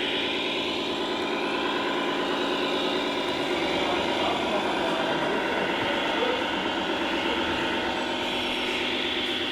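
Radio-controlled model trucks and construction machines running: a steady engine-like drone with whining pitches that rise and fall.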